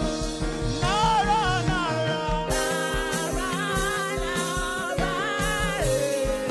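Gospel singing with instrumental accompaniment: a sung melody with a wavering, vibrato pitch over sustained chords and a steady bass and drum beat.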